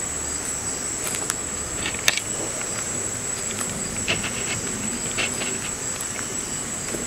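Insects chirring in one steady high-pitched note, with scattered faint clicks and light knocks, the sharpest about two seconds in.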